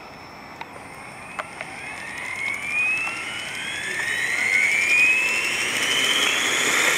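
Mikado Logo 480 electric RC helicopter spooling up on the ground: the motor and drive whine rises steadily in pitch while the rotor's whoosh grows louder.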